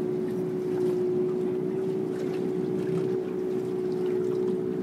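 Boat motor running steadily: an even drone held at one pitch over a low rumble.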